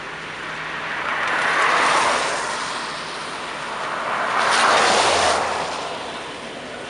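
Two road vehicles passing one after another, each a swell of tyre hiss on wet pavement that rises and fades over about two seconds, the first peaking about two seconds in and the second about five seconds in.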